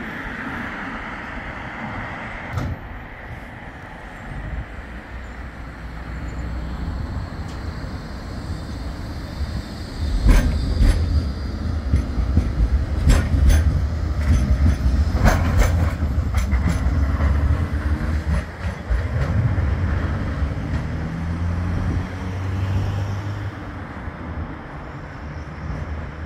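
Bombardier Flexity 2 tram pulling away from a stop and passing close by: a low rumble, with a run of sharp clicks as it goes past. The rumble eases off near the end.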